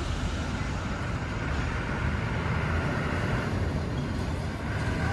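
Steady motor-vehicle noise, a low rumble with a hiss over it, like passing road traffic.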